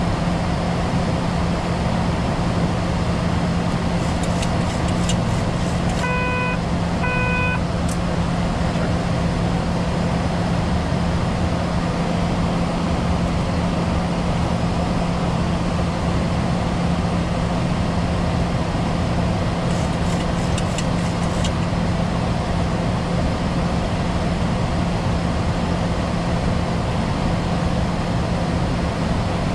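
Steady flight-deck noise of a Boeing 737-800 in flight, with a constant low hum. About six seconds in come two short electronic beeps, about a second apart.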